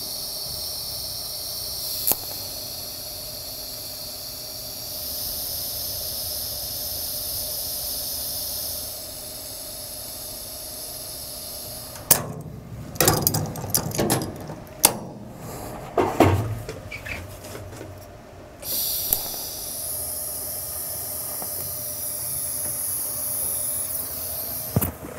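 TIG welding arc on DC from an Everlast PowerTIG 210 EXT, a steady high hiss while a weld is run, stopping about nine seconds in. A spell of irregular knocks and clatter follows, then a second weld's steady arc hiss starts about three-quarters of the way through.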